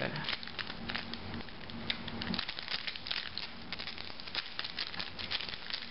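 Foil wrapper of a trading-card booster pack crinkling and crackling in the hands as it is worked open: a dense run of small sharp crackles.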